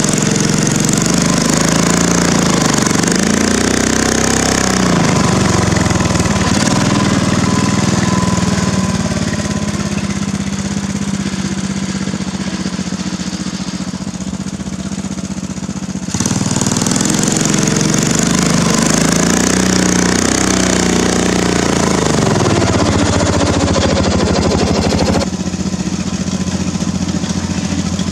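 Craftsman LT1000 riding mower's engine running under load in sand, its pitch rising and falling as it revs up and eases off. The sound cuts abruptly to a louder stretch about halfway through and changes again near the end.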